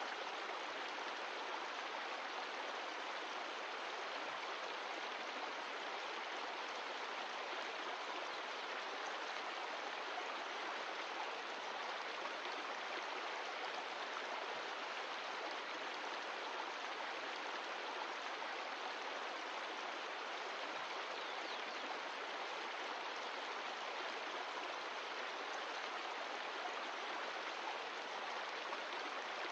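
Mountain stream of glacial meltwater rushing steadily over rocks, an even continuous rush of water.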